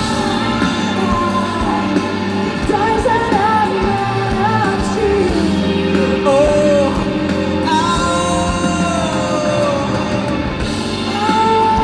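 Live rock band playing with a singer carrying the melody over guitars, bass and drums.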